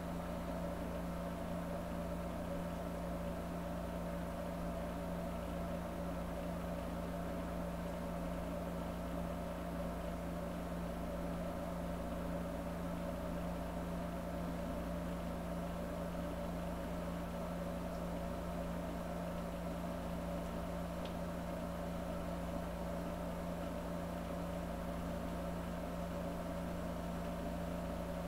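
A steady, unchanging low drone, holding the same pitch and level throughout.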